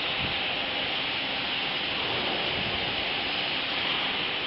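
Steady whooshing hum of a running shrink-wrap box packaging machine and its infeed conveyor, even in level throughout.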